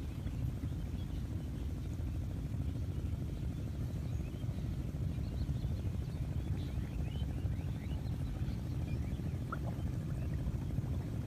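A steady low rumble with faint, short small-bird chirps over it, most of them in the middle of the stretch.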